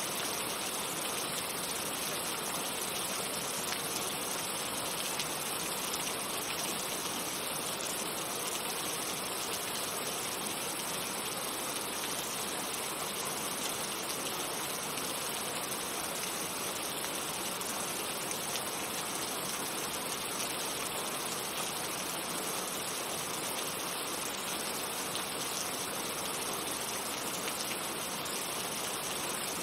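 Steady rain falling: an even hiss with no single drops or splashes standing out.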